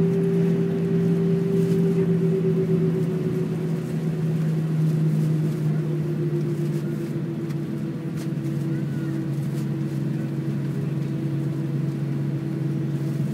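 Airbus A319 jet engines heard from inside the cabin, a steady hum that slowly falls in pitch and eases off as the engines wind down, with a few light cabin rattles.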